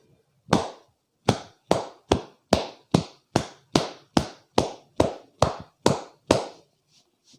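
Percussive head massage by a barber: fourteen sharp hand strikes in a steady rhythm, a little over two a second.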